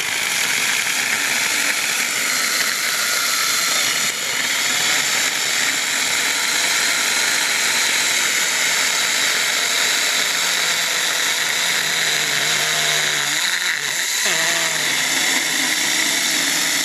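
Saker mini cordless electric chainsaw with a 4-inch bar cutting through a green log at the limit of its bar, the chain spraying sawdust. It runs steadily and loud, working hard through the wet wood, with a brief dip about fourteen seconds in.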